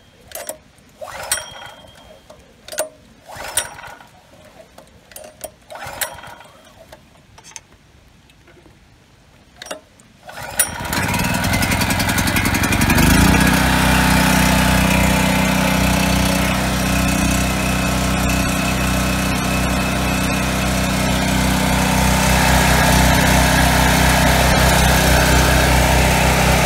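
Predator 4000 generator's 212cc single-cylinder engine, its carburetor freshly cleaned of varnish, catching on a recoil pull about ten seconds in after several sharp clicks. It revs up over a couple of seconds, then settles into a steady run.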